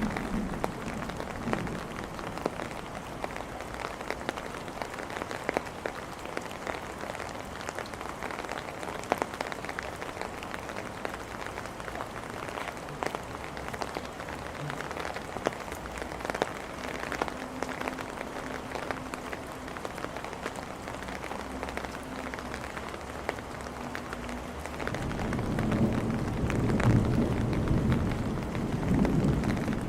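Steady heavy rain falling on hard surfaces, with many sharp individual drop ticks. About 25 seconds in, a low rolling rumble of thunder swells up and becomes the loudest sound.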